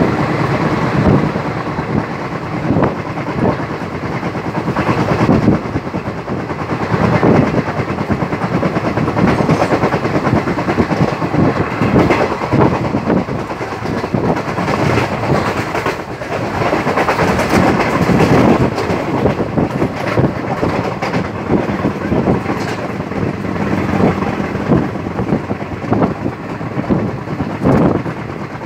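Passenger train running along the track, heard from an open coach door: a steady rumble and wind rush with the wheels clacking irregularly over the rail joints.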